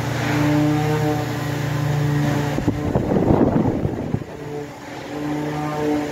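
Steady mechanical hum of workshop machinery, a motor running with a few pitched tones that come and go. About three seconds in, a rattling, crackling noise covers it for about a second.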